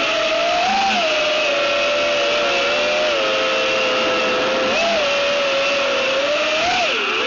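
FPV racing quadcopter's four brushless motors (ZMX V3 2206 2300kv) spinning 5x4x4 three-blade props, heard through a camera mounted on the quad: a loud, steady buzzing whine whose pitch rises briefly with a few throttle blips. Near the end the pitch drops sharply as the throttle comes off for landing.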